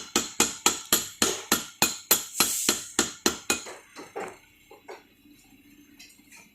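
Rapid, even hammer blows, about three a second, driving a new clutch pulley and bearing assembly onto an AC compressor. They stop about three and a half seconds in, and a few lighter knocks follow.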